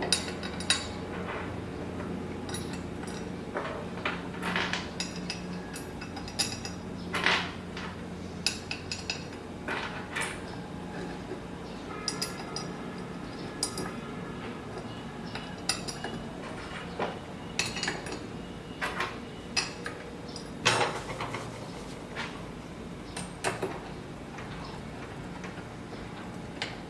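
Scattered metallic clinks and taps of bolts and machined parts being handled and fitted into a CNC Z-axis assembly, over a steady low hum.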